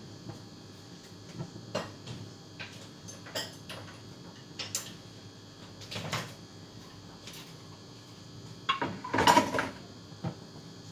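Kitchenware being handled: scattered single knocks and clinks, then a brief louder clatter about nine seconds in.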